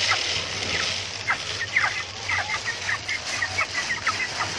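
A flock of young white broiler chickens, about 25 days old, peeping: many short high calls, some dropping in pitch, several a second and overlapping, over a steady hiss.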